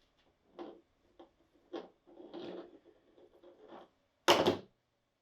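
Small parts and tools being handled and set down on a workbench: a few faint clicks and shuffles, then one louder short knock a little after four seconds in.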